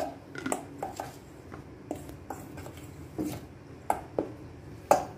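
A metal spoon stirring dry flour in a stainless steel bowl, with irregular clinks and scrapes of the spoon against the bowl and a few louder knocks, the loudest at the very start and near the end.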